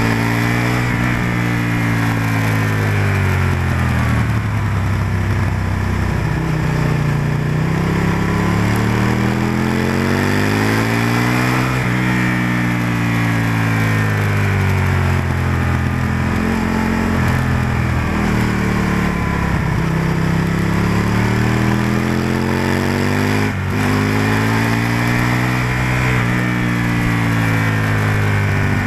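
Aprilia RSV-R motorcycle's V-twin engine running hard at track speed, its revs rising and falling several times as it is ridden through corners, over a steady rushing noise. The sound dips briefly once about 23 seconds in.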